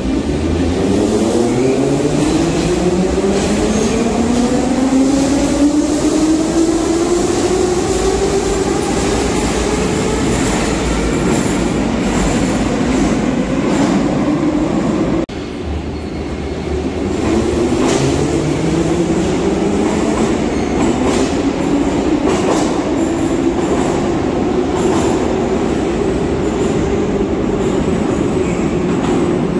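81-717-type metro train accelerating away from the platform, its traction motors whining and rising steadily in pitch. The sound breaks off suddenly about halfway through, and a second train's motor whine starts low and climbs again the same way.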